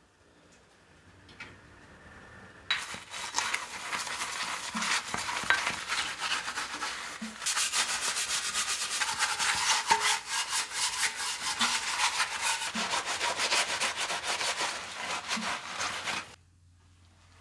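Rapid abrasive scrubbing strokes worked by hand over a rusty part, starting about three seconds in and stopping abruptly near the end.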